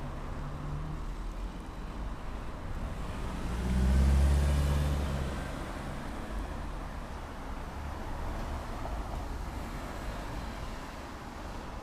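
Road traffic: a steady low engine rumble, with one vehicle passing close and loudest about four seconds in.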